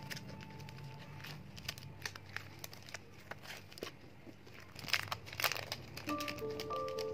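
Clear plastic packaging crinkling as sticker packs are handled and a sleeve is pulled open, in a quick run of crackles that is loudest about five seconds in. Soft background music with held notes plays underneath.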